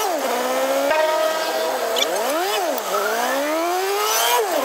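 Jeepney engine heard from inside the passenger cabin. Its pitch climbs steadily as the jeep accelerates in gear, then drops sharply at each gear change, twice, with a quick rev up and down between shifts.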